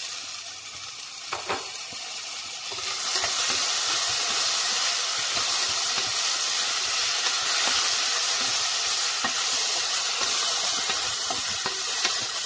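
Cauliflower, onion and chopped tomato sautéing in oil and ghee in a steel pot: a steady sizzle with a wooden spatula stirring. The sizzle grows louder about three seconds in.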